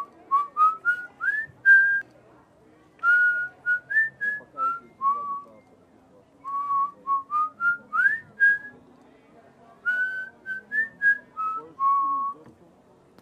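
A person whistling a tune in four short phrases of quick notes, each climbing and then settling back down, over a faint low murmur.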